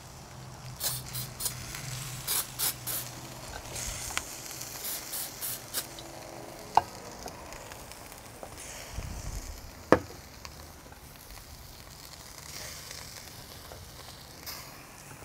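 Burger patties sizzling on a charcoal grill, with soft brushing strokes in the first half. There is a sharp click about seven seconds in and a louder one about ten seconds in.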